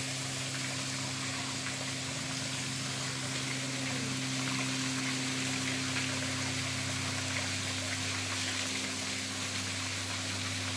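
Steady hiss of small waterfalls trickling down a rock face into a pool, with a steady low hum underneath.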